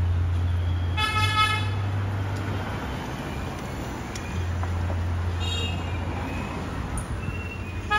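A vehicle horn sounds a short held toot about a second in, and a fainter toot follows near six seconds, over a steady low rumble of street traffic.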